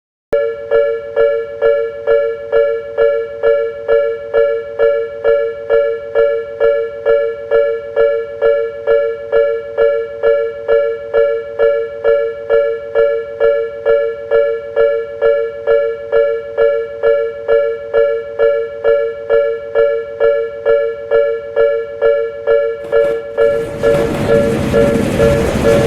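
Japanese level-crossing warning bell ringing steadily, two close tones struck about twice a second. About twenty-three seconds in, the noise of a passing train rises under the bell.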